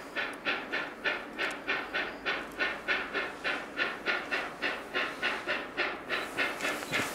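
Steam locomotive exhaust chuffing in an even rhythm of about four beats a second as the engine comes on.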